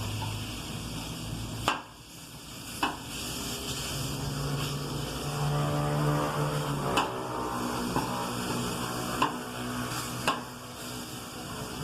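Food sizzling in a frying pan, with a utensil knocking sharply against the pan about five times as it is stirred and turned.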